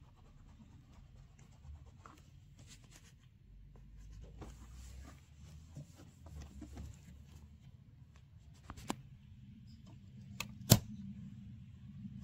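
A cotton cloth wiping and rubbing over a Citroën 2CV's painted body panels, a soft intermittent rustle with faint taps. A single sharp click comes near the end.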